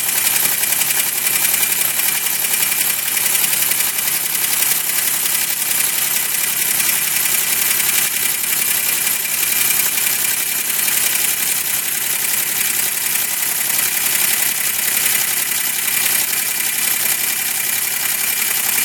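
2005 Chevrolet Equinox 3.4-litre V6 idling steadily with a knock, heard after both cylinder heads were rebuilt (one cracked head welded and machined) and the head gaskets replaced. The machine shop says this noise is common after this kind of head work.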